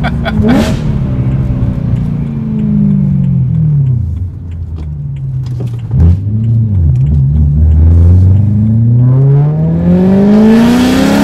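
BMW E92 M3's 4.0-litre V8 through an IPE valved exhaust with the valves open, heard from inside the cabin. The engine note falls for about four seconds as the car slows, a sharp crack comes about six seconds in, then the note climbs steadily as the engine pulls hard under acceleration.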